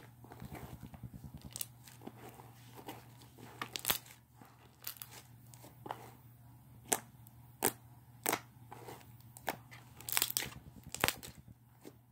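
Slime being kneaded and squished by hand, giving irregular sharp pops and clicks with small crackles between them.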